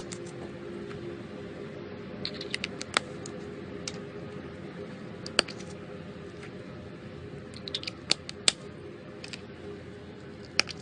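Slime being handled by hand: scattered sharp clicks and pops, some in quick little clusters, over a steady background hiss.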